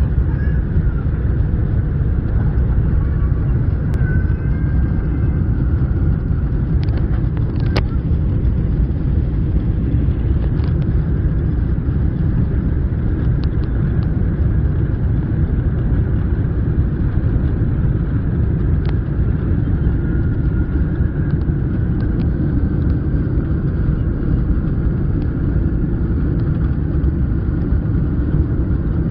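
Airliner's engines and runway rumble during the takeoff roll, heard from inside the passenger cabin: a steady, loud, deep noise with a few brief cabin rattles.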